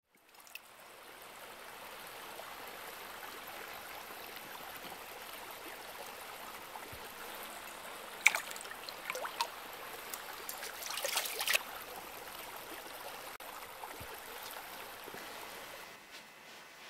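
Running stream water, a steady rush, with a few sharp splashes about halfway through. It stops shortly before the end.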